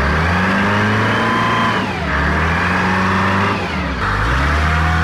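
Diesel engine of a 1985 Gradall telescopic material handler running loudly, its engine speed dropping and picking back up twice, about two and four seconds in.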